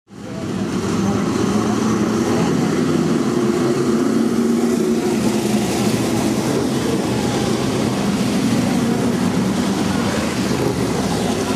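A field of sprintcars' V8 engines running together on the track, a dense, steady engine noise that swells up from silence in the first second.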